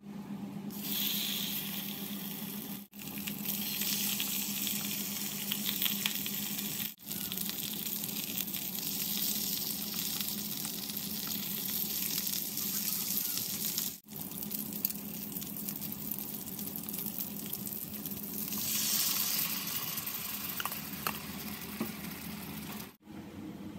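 Saba mackerel fillets sizzling as they fry in oil in a nonstick pan, then bubbling in a soy-sauce glaze; the sizzle drops out briefly four times.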